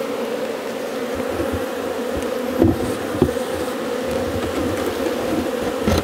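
Honeybees buzzing steadily around an opened hive, with a few dull knocks about halfway through and near the end as the wooden hive boxes and lid are set back in place.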